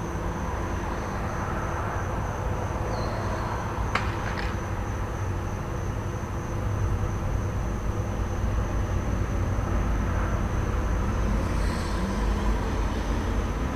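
Idling truck engine running as a steady low rumble under passing traffic, with crickets chirping in a continuous high trill. About four seconds in come two sharp snaps half a second apart, and later the traffic grows louder, with an engine rising in pitch near the end.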